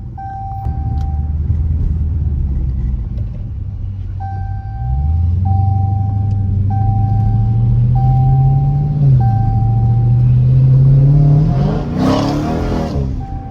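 Dodge Challenger Scat Pack's 392 Hemi 6.4-litre V8, its catalytic converters gutted, idling and then pulling away: the exhaust note climbs steadily, dips briefly at a gear change and rises again, swelling into a loud burst of throttle near the end. A short electronic beep repeats about once a second through much of it.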